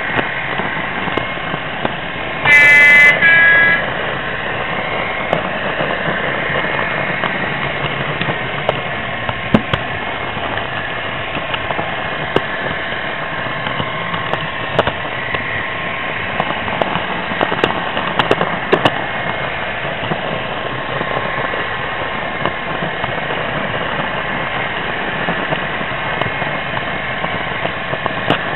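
Model diesel locomotive's DCC sound decoder sounding a two-tone horn, a higher note then a lower one, lasting about a second, about three seconds in. Underneath, the steady hum of the running OO gauge train with scattered light clicks.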